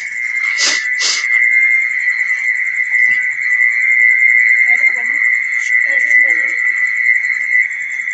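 Recorded mole cricket call played loud through a horn loudspeaker: a steady, unbroken high buzzing trill, used as a lure to draw mole crickets to the light. Three short knocks sound in the first second or so.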